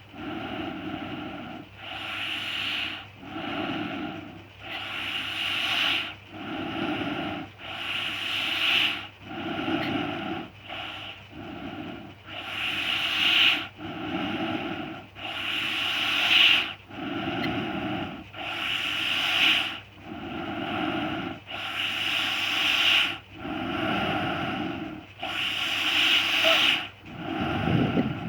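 A person snoring heavily: loud, rasping breaths repeating in a steady rhythm, one about every second and a half.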